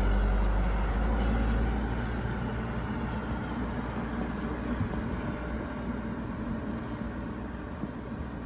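Engine of a light truck heavily overloaded with sugarcane, running as it drives past and away on a dirt track, loud at first and fading steadily from about two seconds in.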